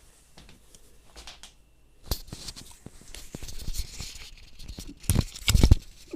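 Cardboard box packaging being cut and torn open with bolt cutters: snipping clicks and tearing, crinkling noise that grows louder about two seconds in, with a couple of heavy knocks near the end.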